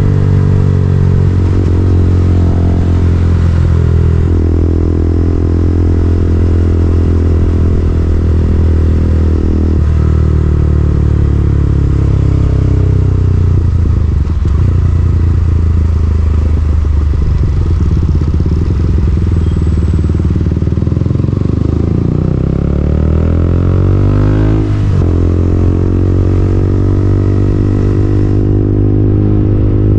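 KTM Duke 200's single-cylinder engine running under way, its note holding steady for stretches and rising and falling with engine speed, with a quick swing in revs about three-quarters of the way through.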